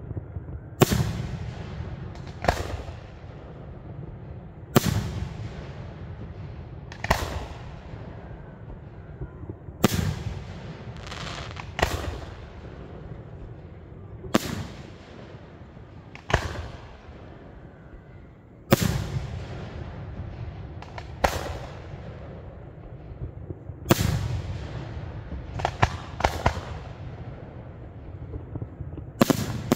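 Aerial firework shells bursting one after another: about fifteen sharp bangs spaced one to three seconds apart, each followed by a rolling echo.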